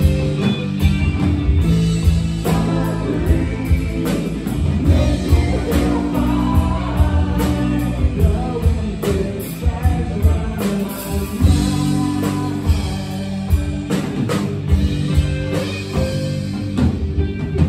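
Live band playing: electric guitar, electric bass and drum kit, with singing over them.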